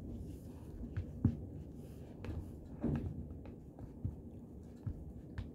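A spoon against a plastic food bowl, giving a handful of light, scattered clicks and taps, about seven spread irregularly, over a low steady background hum.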